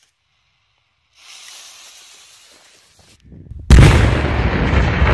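A large firecracker charge going off with one sudden heavy bang about three and a half seconds in, followed by a loud rumble that goes on. A quieter hiss comes before the bang.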